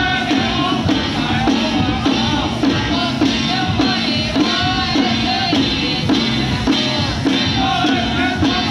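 Ritual chanting for a deity-statue consecration, sung in a wavering melodic line over steady strokes of a handheld ritual drum, about two beats a second, with a held low drone underneath.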